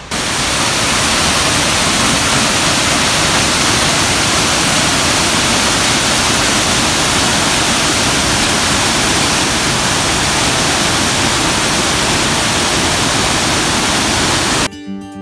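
A waterfall's water falling and splashing: a loud, steady rush of noise with no change. Acoustic guitar music cuts in near the end.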